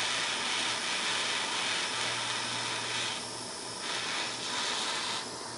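Gas torch flame hissing steadily while it heats aluminum alloy in a brass case, dipping briefly twice as the flame is moved off the work.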